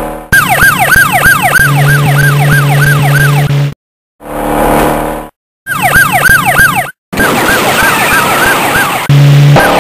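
Police siren sound effect in a fast yelp, rising and falling about three times a second, cut off abruptly several times. Around the middle a car's engine swells and fades as it rushes past.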